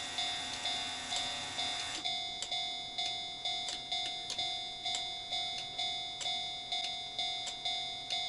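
Railroad crossing warning bell on an O-gauge model crossing, ringing in an even, steady rhythm of about two dings a second, in the Japanese crossing style.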